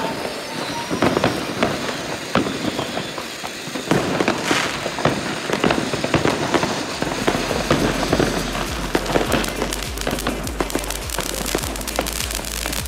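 Fireworks going off: a rapid, irregular stream of pops, crackles and bangs, from ground fountain fireworks spraying sparks and rockets.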